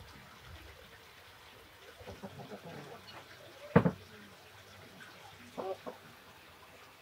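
Wet, squelching handling of raw lamb intestines and caul fat being wound around a skewer by hand. A short, sharp sound stands out a little past halfway, with two shorter, quieter ones near the end.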